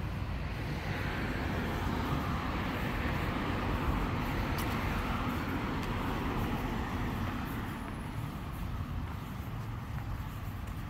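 A motor vehicle passing on the street, its tyre and engine noise swelling over the first few seconds and fading away, over a steady low traffic rumble.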